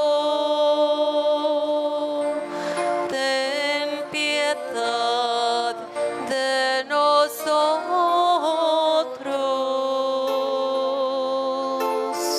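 Church singing group singing a slow hymn, voices holding long notes with slight vibrato.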